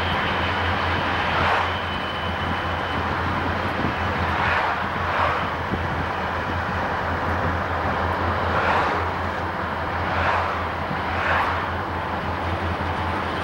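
Road and wind noise inside a car moving at highway speed: a steady rush over a low hum. About six brief whooshes swell and fade along the way.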